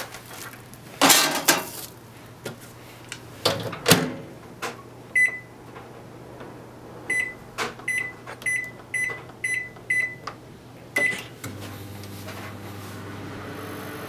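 Daewoo microwave oven: the door shut with clunks, then about nine short beeps from the control panel keys as the time is set, and near the end the oven starts running with a steady low hum.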